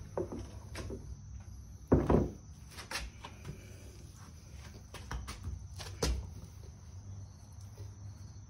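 Scattered knocks and clunks from handling a push mower and a plastic oil drain pan on a concrete floor. The loudest knock comes about two seconds in, followed by a few lighter clicks, over a low steady hum.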